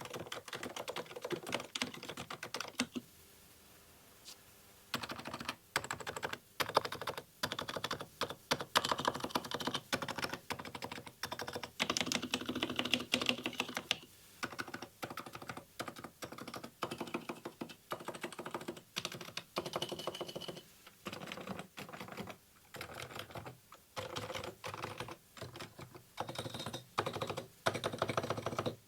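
Typing on a Realforce x Ducky R1 keyboard with 45 g Topre switches fitted with purple silent sliders: fast runs of keystrokes, pausing for about two seconds about three seconds in.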